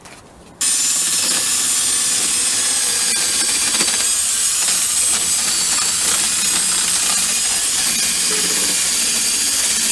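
A loud, steady hiss of a jet of compressed air blowing a freshly reassembled part clean. It starts abruptly about half a second in and cuts off sharply at the end.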